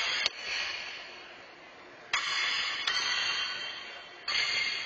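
Thrown steel horseshoes clanging against steel stakes: sharp metallic clangs about two, three and four seconds in, each ringing and fading over a second or so.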